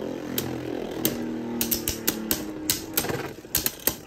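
Two Beyblade Burst tops, Wind Knight and Devil Sword Xcalibur, spinning in a plastic stadium. They give a steady whir that thins out about halfway through, with repeated sharp clacks as they strike each other, bunched in quick clusters.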